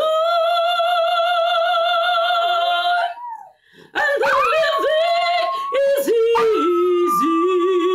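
A woman singing long, wavering held notes, with a break about three seconds in. In the second half a small white dog howls along with her.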